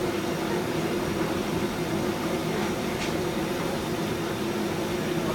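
Chicken deep-frying in a wok of bubbling oil over a gas burner: a steady sizzling hiss with a low hum underneath.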